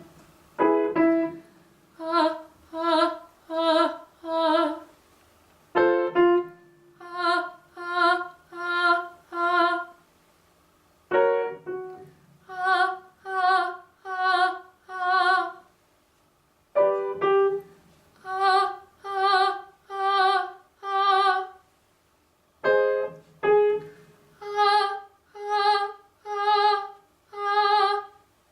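Vocal warm-up exercise: a piano plays a short cue, then a woman sings four short, detached notes on one pitch, about one a second. The pattern repeats five times, each round a semitone higher.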